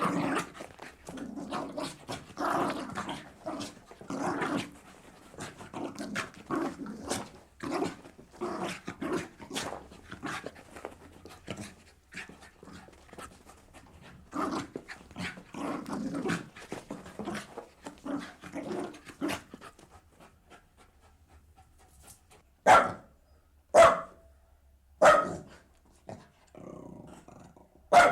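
Jack Russell terrier making a long run of short, rapid growls and pants for about twenty seconds. Then it gives four sharp single barks, the first three about a second apart and the last one a few seconds later.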